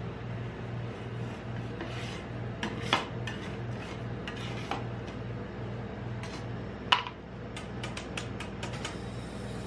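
Metal spatulas scraping and tapping on the frozen steel plate of a rolled-ice-cream pan, lifting up rolled ice cream. There are two sharp metal clanks, about three and seven seconds in, and a run of quick taps near the end, over a steady low hum.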